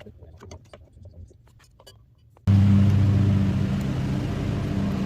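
A few faint clicks and taps, then about two and a half seconds in a TIG welder is switched on and hums loudly and steadily.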